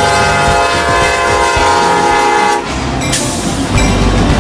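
Norfolk Southern diesel freight locomotive's air horn sounding a long steady chord, cutting off suddenly about two and a half seconds in, then the deep rumble of the locomotive passing close by with a brief hiss.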